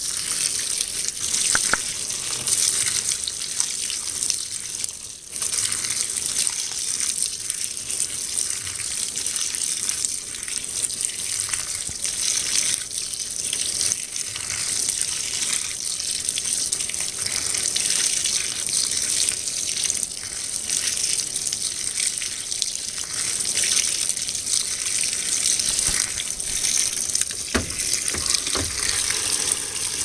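2012 LG top-load washer filling: a steady stream of water pours from the inlet into the tub onto the wet load of clothes.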